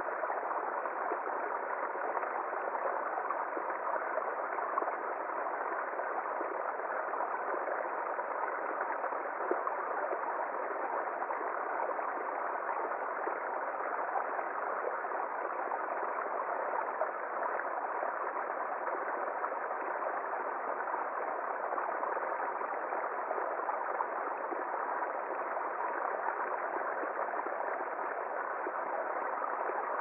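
Small woodland stream pouring in a thin cascade over a low ledge into a shallow pool: a steady, even sound of running water.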